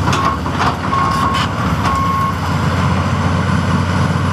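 Heavy diesel engine of a John Deere 330C LC excavator running steadily. Over it come three short, high backup-alarm beeps in the first couple of seconds, the first one shortest, and a few sharp metallic knocks.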